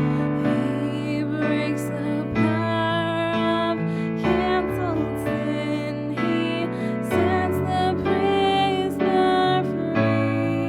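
Slow, gentle keyboard music with sustained chords that change every second or two.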